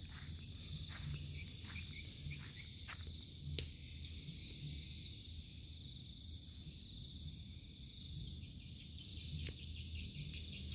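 Night insects chirping steadily as a high, even drone, over a low uneven rumble. Two sharp clicks, a little over a third of the way in and near the end.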